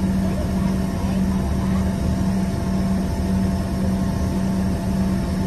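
Inside the cabin of an Embraer ERJ-145 regional jet: the steady drone of its twin rear-mounted turbofan engines and the rushing air, with a constant low hum.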